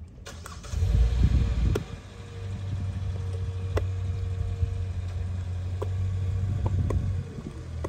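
A motor vehicle engine running steadily, with a louder low rumble for about a second starting a second in. The hum drops away near the end, and a few light clicks are heard along the way.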